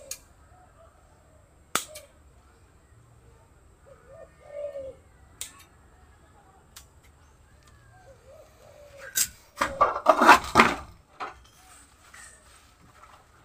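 Pruning shears snipping off the small roots of a bare-rooted bougainvillea: single sharp clicks a few seconds apart, then a louder burst of rustling and knocking about nine to eleven seconds in as the roots are handled. Faint bird calls in the background.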